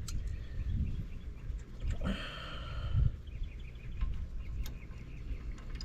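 Light handling noise and a few sharp metallic clicks from diagonal cutters working a steel cotter pin, over a steady low rumble.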